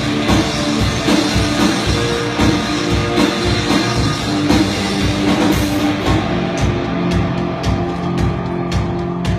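Live rock band playing drum kit and guitars: held guitar chords over a steady drum beat, with no singing.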